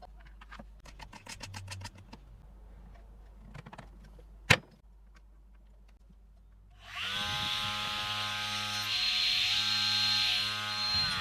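Light clicks and handling taps, with one sharp click, then a 775-type DC motor on a homemade saw spins up quickly about seven seconds in. It runs steadily with a high hiss for about four seconds, then winds down near the end.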